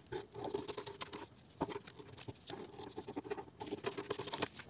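Large scissors cutting through stiff brown pattern paper: several stretches of crisp snipping and paper crackle, broken by short pauses, with a sharp click of the blades about one and a half seconds in.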